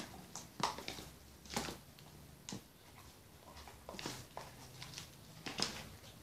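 Scattered light taps and clicks of hands handling small plastic bottles and cups, with hands poking and pressing a lump of jelly slime on a board.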